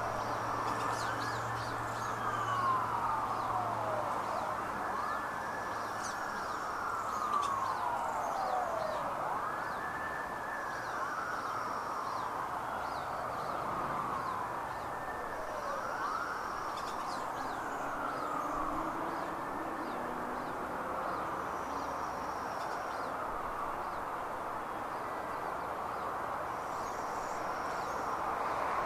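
Emergency vehicle siren wailing in the distance, its pitch sweeping up and down every two to three seconds and fading near the end.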